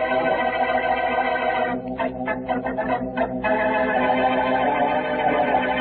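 Organ music bridge of sustained chords, marking the return to the drama after the break. The chords shift about two seconds in, then hold and stop just after.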